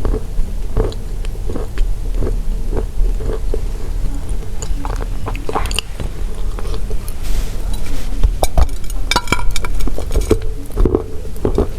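Close-up crunching and chewing of pressed chalk tiles, a string of dry crunches every half second or so. About nine seconds in there is a denser run of crackling. A steady low hum runs underneath.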